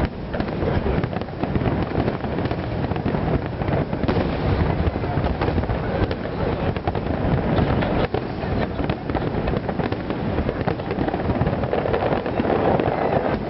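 Fireworks going off in a dense, continuous crackle of many small bangs.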